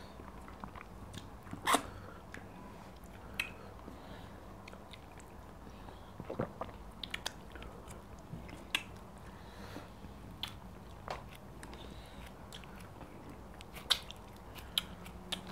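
Close-miked eating of fufu, ogbono soup and meat by hand: scattered wet mouth smacks and chewing, with short clicks every second or two over a faint steady hum.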